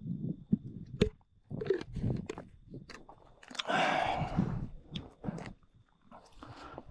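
Irregular crunching footsteps and clicks of boots on a rocky, gravelly trail, with a longer scuffing rustle about halfway through.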